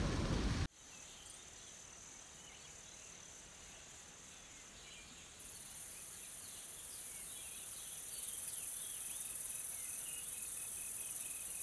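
Wind rushing over the microphone for under a second, cut off suddenly. Then a steady high-pitched insect drone in the bush, growing louder about five seconds in, with scattered short bird chirps.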